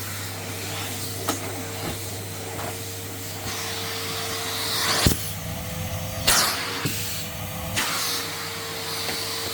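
Henry vacuum cleaner running steadily with its motor whine and rushing air, broken by a few sharp knocks and clatters, the loudest about five and six seconds in, where the motor note shifts slightly.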